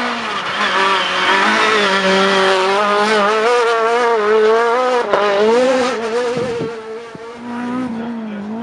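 A rally car's engine running hard at high revs as it climbs the stage and takes a corner, the pitch wavering as the throttle is worked, with a sharp crack about five seconds in. Near the end the engine note drops away with a steadily falling pitch.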